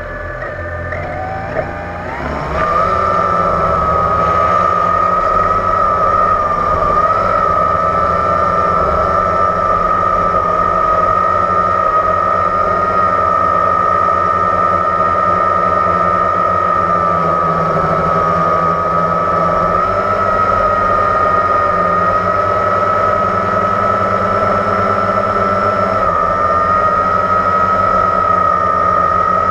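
Blade 350 QX quadcopter's brushless motors and propellers spinning up to lift off about two seconds in, then holding a steady high whine with slight pitch wobbles as it flies. The sound is picked up close by the GoPro mounted on the drone.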